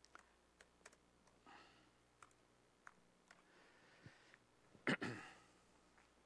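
Faint, scattered clicks of a laptop keyboard being typed on, with a brief louder rustle about five seconds in.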